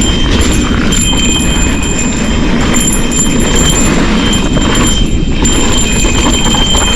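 Santa Cruz Bronson mountain bike rattling down a trail at speed, with a cow bell on the bike clanking and ringing on every bump, over a heavy low rumble.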